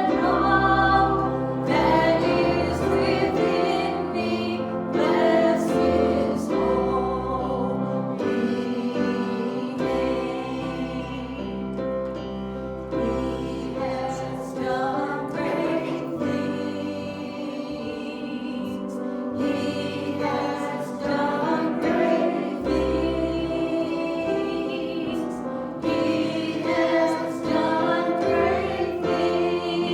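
A group of voices singing worship music together over instrumental accompaniment, with held low bass notes underneath.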